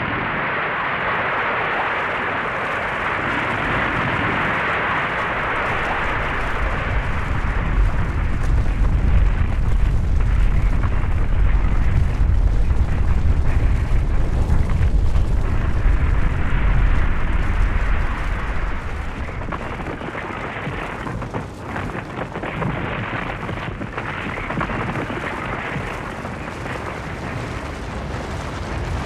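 Avalanche: a continuous rushing hiss of moving snow that gives way to a deep, heavy rumble, loudest through the middle and dropping back a little about two-thirds of the way through.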